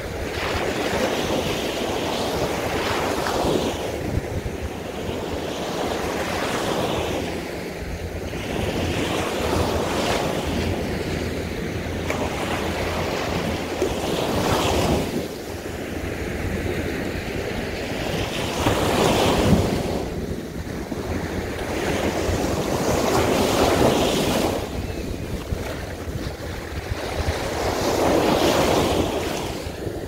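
Small waves breaking on a sandy beach and their foam washing up and draining back over the sand, the rush swelling and ebbing about every four to five seconds. A low wind rumble on the microphone runs underneath.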